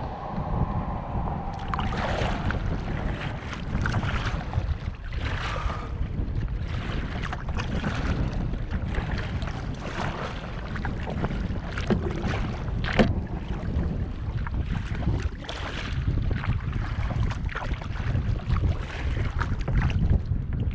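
Wind rumbling on the microphone of a GoPro action camera mounted on a kayak's bow, with irregular splashing of river water from paddling. There is one sharp knock about thirteen seconds in.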